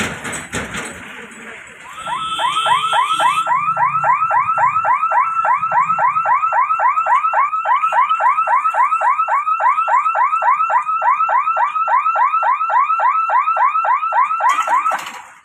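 Level-crossing gate warning alarm: an electronic siren repeats a rising chirp about four times a second while the lifting barrier is lowered, signalling that the gate is closing for an approaching train. It starts about two seconds in and cuts off suddenly near the end.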